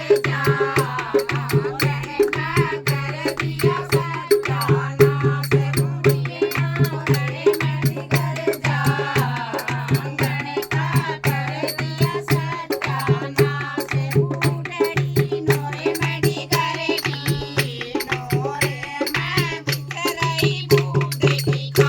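Haryanvi folk song: a voice sings over an even, steady beat of rattling hand percussion.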